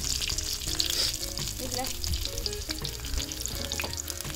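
A whole marinated pearl spot fish (karimeen) sizzling and crackling in hot oil in a clay pot, just put in to fry its first side.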